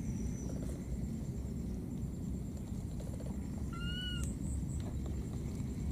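A baby monkey gives one short, high, arched call about four seconds in, a lost infant calling for its mother, over a steady low rumble.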